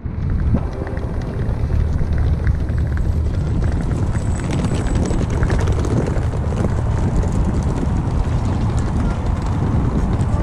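Wind buffeting the camera's microphone, a loud, steady low rumble, over faint outdoor background noise.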